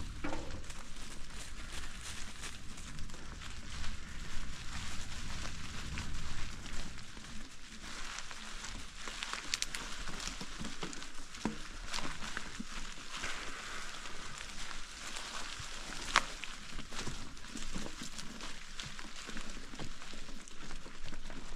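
Bicycle tyres rolling over dry fallen leaves on a dirt trail: a steady crackle with scattered sharper snaps and clicks.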